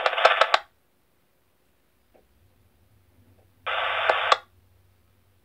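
Scanner receiver replaying recorded narrowband FM radio traffic: a transmission ends with a few clicks under a second in. A little under four seconds in comes a short burst of radio hiss, under a second long, from a fire-brigade channel transmission.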